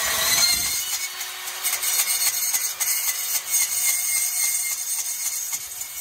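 Ridgid 18V cordless compact bandsaw running and cutting through a metal bed-frame rail: a steady, even sawing hiss over a constant tone from the saw.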